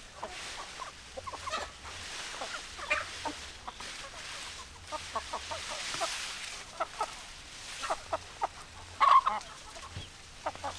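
Chickens clucking in a steady run of short, separate clucks, with one louder call about nine seconds in.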